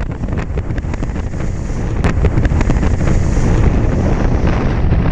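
Storm wind buffeting a phone's microphone as a heavy, steady rumble, over rough floodwater surging and splashing through a flooded street. It grows a little louder about two seconds in.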